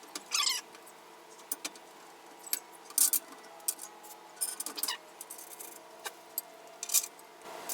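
Scattered light metallic clicks and clinks of bolts and hardware being handled while a truck bed panel is readied for bolting, the loudest about three seconds in.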